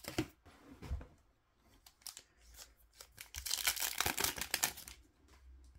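A pack of Upper Deck MVP hockey cards being torn open, its wrapper crinkling, among scattered light clicks of cards being handled. The tearing and crinkling is loudest from about three and a half to five seconds in.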